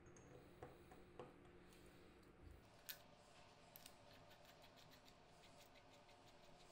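Near silence with faint small metal clicks from a greased threaded steel part being screwed into a knurled steel sleeve. A few separate clicks come in the first three seconds, then quicker, fainter ticks.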